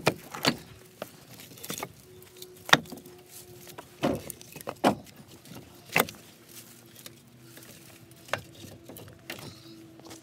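Split firewood pieces knocking against one another and the pickup's bed liner as they are handled: about seven irregular wooden knocks.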